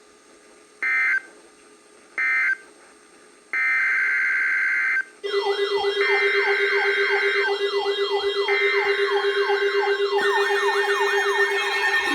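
Emergency Alert System data tones: short quarter-second squawks sent three times, the end-of-message code, then longer squawks about a second apart as the next alert's header begins. From about five seconds in, a wailing electronic siren with falling sweeps about three times a second and a steady low buzz is laid over the header bursts.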